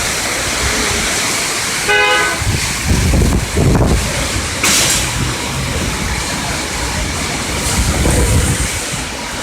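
Heavy rain pouring down with gusts of wind buffeting the microphone in low rumbles. A car horn gives a short toot about two seconds in.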